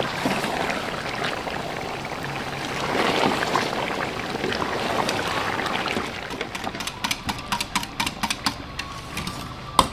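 A wooden spatula stirs frying chicken in a large aluminium pot, with a wet, sizzling noise. From about six seconds in, a wire whisk beats yogurt in a steel saucepan, its wires clicking quickly and unevenly against the pan.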